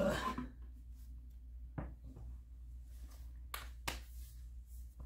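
A few short, soft knocks and taps of objects being handled and set down by hand, spaced a second or more apart, over a steady low hum.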